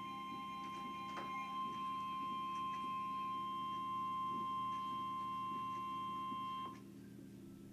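Emergency Alert System attention tone: a single steady high electronic tone over a low hum, cutting off suddenly near the end.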